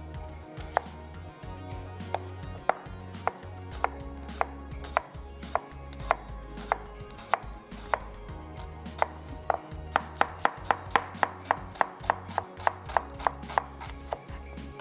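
Kitchen knife chopping an onion on a cutting board, in sharp, even strokes a little under two a second, quickening to about three a second for the last few seconds.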